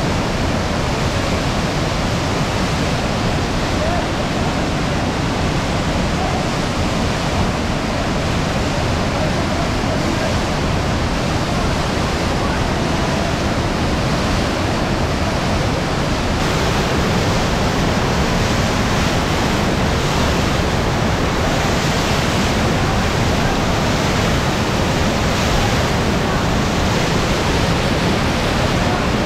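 Waterfall close by: a loud, steady rush of falling water, a little louder from a bit past halfway through.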